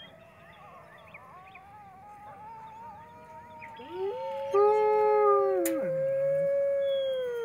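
Wolves howling in chorus. A faint, long howl runs through the first half, then two louder overlapping howls come in about four seconds in. The lower one slides down and drops out near six seconds, while the higher one holds on.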